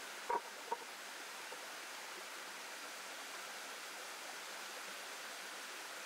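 Stream water flowing steadily, with two short knocks about half a second apart near the start as the flat griddle slab is shifted against the rock.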